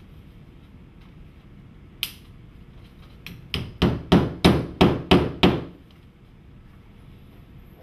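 Hammer nailing a stone-veneer cladding panel to the wall: one strike, then a quick run of about eight blows, roughly three a second.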